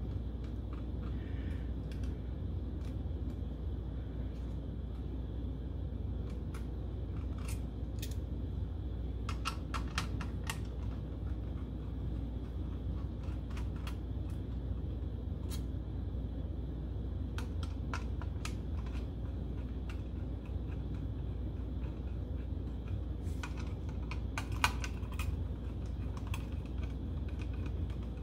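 Scattered small metallic clicks and ticks of a screwdriver and screws being worked out of a 720K floppy drive's metal housing, in irregular clusters with one sharper click late on, over a steady low hum.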